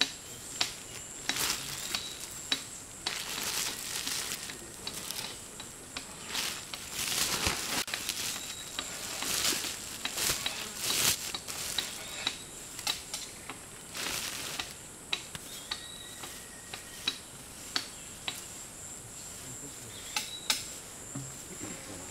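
Sawdust scooped by hand and pushed into a woven plastic sack: irregular rustling and sharp crackles of the sack and sawdust. Insects keep up a steady high drone throughout.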